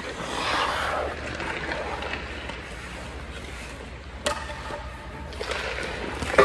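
A hockey stick slapping a puck on the ice about four seconds in, a single sharp crack, with another sharp hit near the end, the loudest sound. Before it, skate blades scrape the ice.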